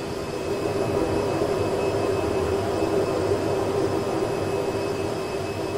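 Airbus A320 full flight simulator's cockpit engine sound, with the one working jet engine running steadily at takeoff thrust during the climb after an engine failure at V1. A steady hum over a rushing noise, swelling slightly about half a second in.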